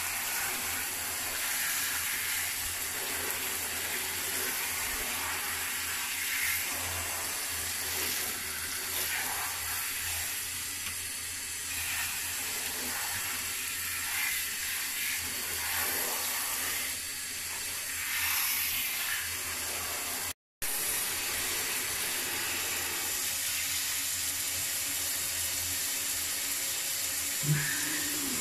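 Hand-held shower head spraying water onto a wet cat in a shower tray: a steady hiss of running water, broken once by a momentary dropout about two-thirds of the way through.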